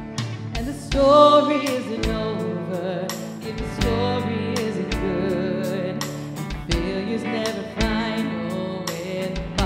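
Live worship band playing a contemporary Christian song: a woman singing lead over drum kit, electric guitar and keyboard, with a steady drum beat.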